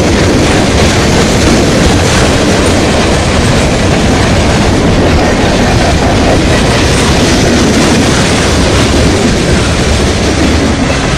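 Norfolk Southern freight train's cars rolling past loud and close: a steady, unbroken rumble and rattle of steel wheels on the rails.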